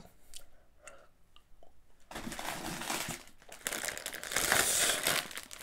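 Crinkling of a foil chip packet being handled, irregular and crackly, starting about two seconds in and running to near the end.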